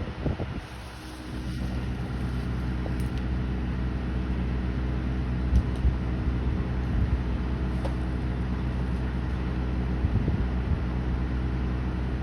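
An engine runs steadily at an even speed, with a short dip in level about a second in and a few light knocks later on.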